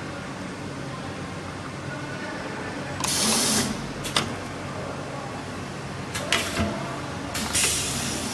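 NZ3260 pneumatic edge-curling machine for paper tubes and cardboard boxes running with a steady hum. Several short hisses of compressed air come as its cylinder drives the curling head down and back up, the longest about three seconds in.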